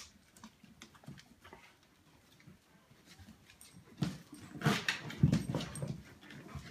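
Four-week-old whippet puppies whimpering, mostly in a louder stretch beginning about four seconds in, over faint scattered clicks and rustling.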